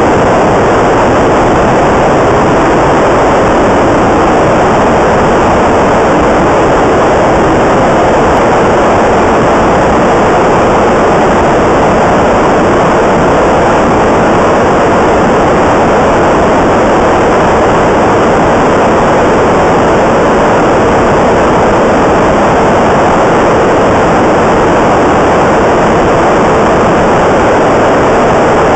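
GE LM1500 industrial gas turbine, an aeroderivative of the J79 jet engine, running steadily on its test stand. It makes a loud, even rushing noise with no distinct whine and no change in pitch or level, heard somewhat muffled through a microphone wrapped in foam under a jacket.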